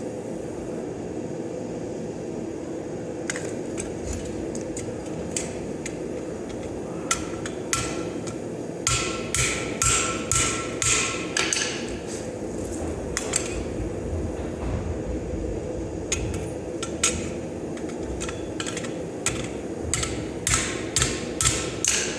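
Hammer blows on steel at an anvil while forging a leaf blank. Some strikes ring out, and the blows come in irregular runs of about two a second, over a steady hum.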